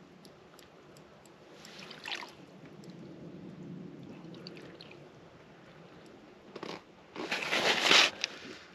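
Faint crunching and sloshing of slush and water in an ice-fishing hole as a hooked northern pike is worked up to it by hand, then a louder splash lasting about a second near the end.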